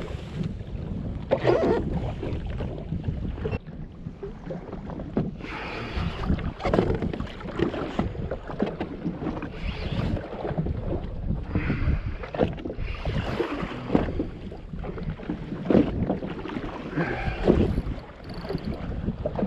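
Water lapping and slapping against a jet ski's hull, with wind buffeting the microphone, in irregular surges over a steady low rumble.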